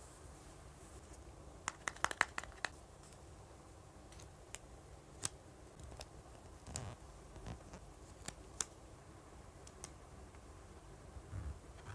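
Hands working paper, tape and stickers on a journal page: scattered light taps and clicks, a quick run of several about two seconds in, with soft paper rustles and a dull thump near the end.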